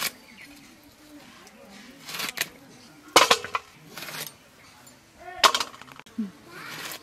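Curved iron blade cutting chunks off a young bottle gourd held in the hand: a series of sharp, crisp cuts about a second apart, the loudest about three and five and a half seconds in.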